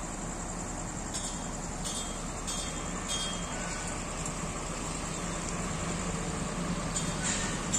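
JCB excavator's diesel engine running steadily while its hydraulic rock breaker hammers at rock, with a fast high chatter and several sharp clicks.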